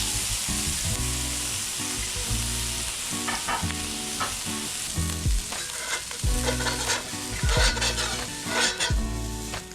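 Sea bass fillet frying in hot oil in a very hot cast iron pan: a steady sizzling hiss, with crackles and pops coming in from about three seconds in.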